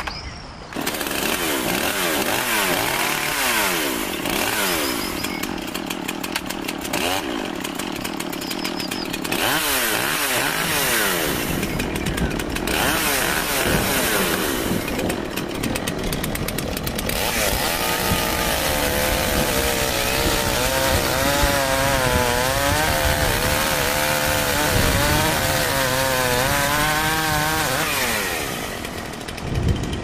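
Chainsaw revving up and down over and over, then held running with a wavering pitch through the second half.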